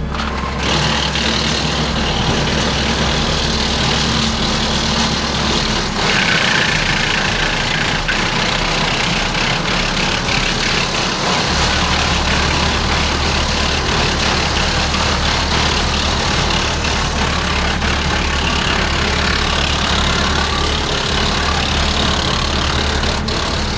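Tractor-powered PTO wood chippers running at work, a steady engine drone with a dense rushing noise of the spinning flywheels and chipped wood blown out the discharge chutes. It gets louder about six seconds in.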